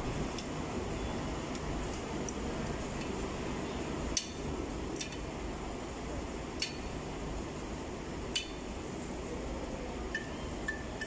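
Hand wrench working bolts on a bare engine block: scattered sharp metallic clinks of steel tool on metal, the loudest about four, six and a half and eight and a half seconds in, with a couple of short squeaks near the end, over a steady low hum.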